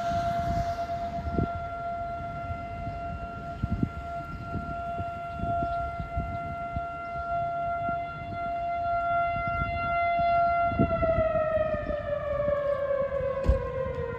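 Outdoor warning siren sounding a steady tone, then winding down about eleven seconds in, its pitch falling steadily as the rotor slows. Under it is a low rumble with a few short knocks.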